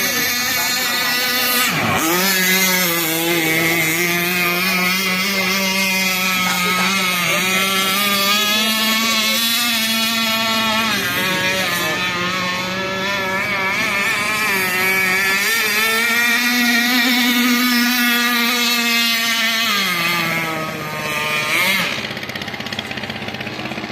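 Radio-controlled catamaran boat's motor running flat out with a steady buzzing pitch. About two seconds in the pitch drops sharply and climbs straight back as the throttle is cut and reopened. Near the end it drops in pitch again and gets quieter.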